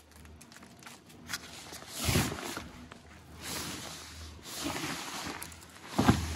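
A fabric car cover rustling and swishing in several surges as it is dragged off the car, the sharpest near the end, over a low steady hum.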